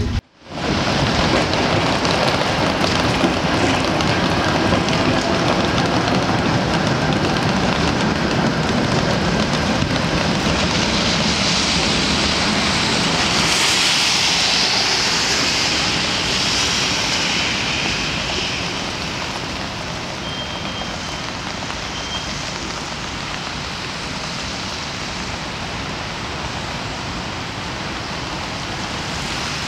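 Street traffic in the rain: a steady hiss of rain and tyres on wet cobblestones. It swells and fades again about halfway through as cars drive past on the wet road.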